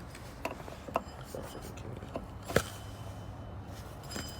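A few light clicks and knocks from serpentine belt tensioner pulleys being handled and spun by hand, the loudest about two and a half seconds in.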